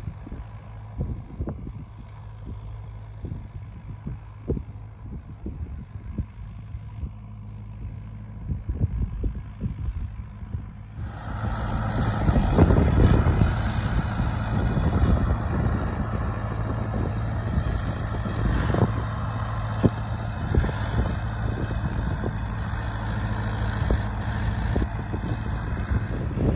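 Fortschritt ZT 323 tractor's diesel engine running steadily under load while pulling a plough. It becomes louder and fuller about eleven seconds in.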